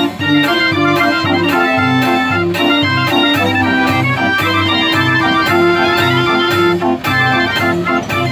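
42-key Heesbeen fair organ playing a tune: a pipe melody and chords over a bass that steps about twice a second, with regular percussion beats.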